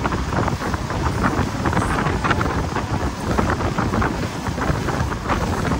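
Wind buffeting the microphone on a motorboat running at speed, over a steady low rumble of the boat going through the water, with irregular crackling gusts.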